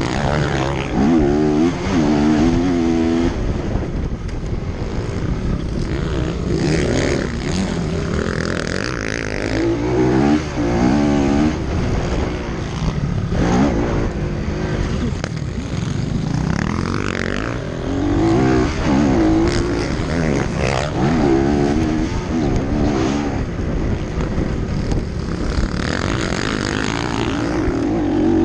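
Motocross bike engine racing, its revs climbing and dropping over and over.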